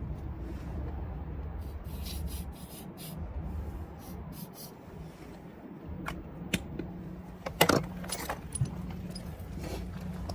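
Rubbing and scraping of hand work on installation parts, with sharp clicks or knocks, the loudest a little over halfway in, over a steady low hum.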